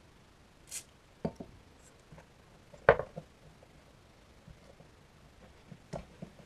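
A few scattered knocks and clicks of a longboard and its trucks being handled, the loudest about three seconds in, with a short hiss near the start.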